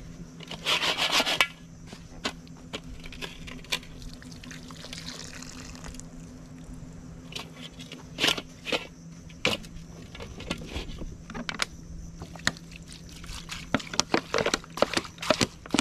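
Raw crab pieces knocking and scraping in a metal pan as they are handled and the pan is shifted, with water poured from a plastic bottle over them near the end.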